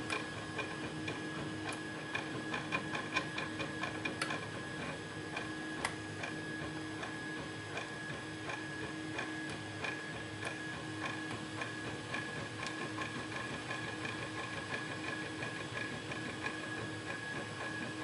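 Light, irregular metal clicks and scrapes of a lock pick working the pins of a six-pin pin-tumbler padlock under tension from a tension wrench, busiest in the first few seconds.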